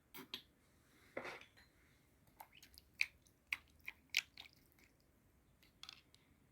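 Faint, scattered small clicks and taps, about a dozen spread over several seconds, with a brief soft rustle about a second in.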